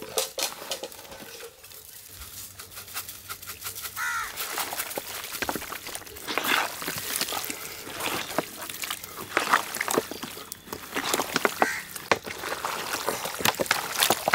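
Mutton pieces coated in yogurt and spice paste being mixed by hand, making irregular wet squelching and slapping sounds. A crow caws a couple of times in the background, about four seconds in and again near the end.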